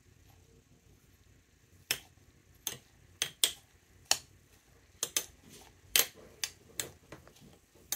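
Metal spoon clinking and scraping against a glass jar as fabric is pushed down into it: a dozen or so irregular sharp clinks, starting about two seconds in.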